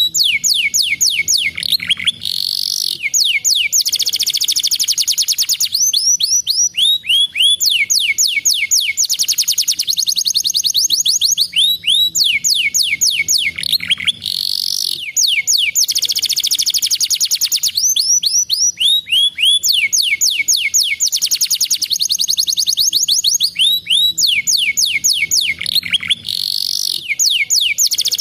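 Domestic canary singing continuously: very fast, high trills and rolls, broken every several seconds by short rising sweeps.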